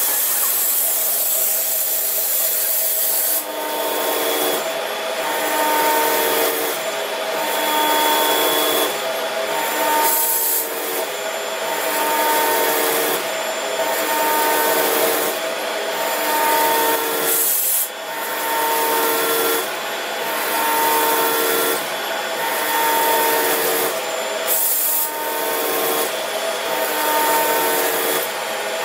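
CNC bevel gear cutting machine milling the teeth of a spiral bevel gear: a hissing cutting noise over a steady machine whine, repeating in a cycle about once a second as the cutter works tooth after tooth.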